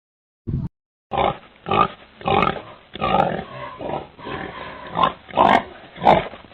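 An animal grunting: one short grunt, then from about a second in a rapid series of short grunts, about two a second.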